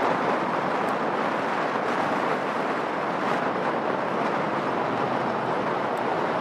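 Four turboprop engines of a C-130 Hercules transport running, heard as a steady, even rushing noise with no clear propeller tone.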